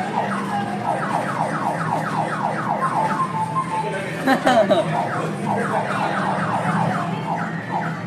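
Arcade claw crane machine's electronic sound effect: a rapid run of falling electronic chirps, about three to four a second, while the claw is in play. A steady low hum lies underneath.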